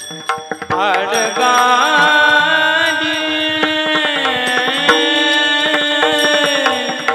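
A kirtan singer's voice in a Bhairavi chaal, with quick ornamented turns about a second in and then a long held, wavering note, over a steady instrumental drone and light drum strokes.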